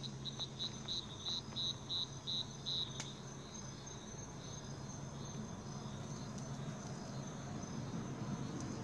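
Cricket chirping: a run of short, high chirps about three a second for the first few seconds, then a fainter steady insect trill. A low steady hum runs underneath, and there is a single click about three seconds in.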